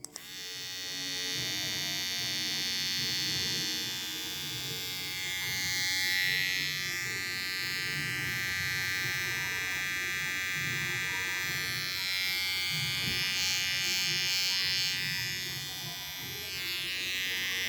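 Gamma+ One Hitter cordless hair trimmer switched on and running, a steady electric buzz made of many even tones, its level swelling and easing slightly as it is moved.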